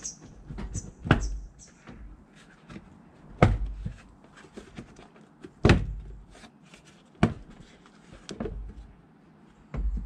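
Plastic engine cover of a Volkswagen Polo Mk4 being pulled up sharply off its push-fit mountings: a series of separate sharp knocks and pops, about six, the loudest a second in, at about three and a half seconds and near six seconds.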